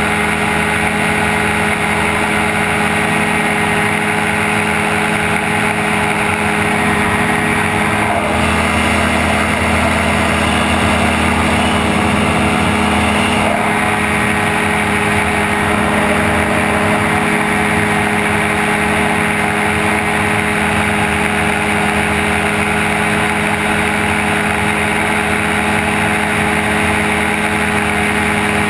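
Gyrocopter engine running steadily in flight, a continuous drone heard from the open pilot's seat.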